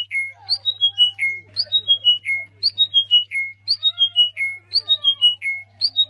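A caged pale buff songbird singing the same short phrase over and over, about once a second. Each phrase is a sharp high note, then a quick falling run of clear notes ending on a lower note.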